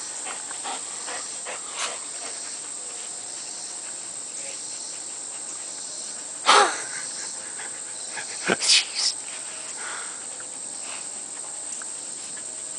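Crickets trill steadily in the background. About six and a half seconds in, one of the muzzled greyhounds gives a single short cry that falls in pitch.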